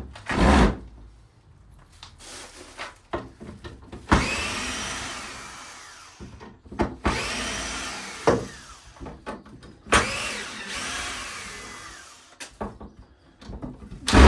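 A power tool run twice, each time starting suddenly and whining down over about two seconds, with scattered knocks and clatter of work between the runs.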